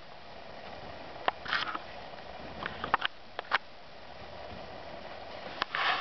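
Doe rabbit licking and nibbling her newborn kits clean in the nest: scattered small wet clicks and a few short rustles, a short burst of them near the end.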